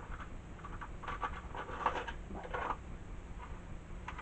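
Light rustling and small clicks, in irregular clusters, of small electronic parts being rummaged through and handled, over a low steady hum.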